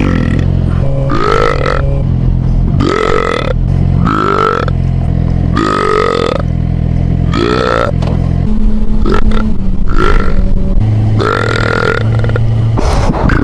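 A man belching repeatedly, about eight loud belches in a row each bending in pitch, over a steady low engine drone, most likely his motorcycle's engine.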